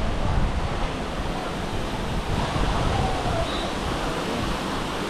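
Steady rush of splashing water, an even noise without breaks.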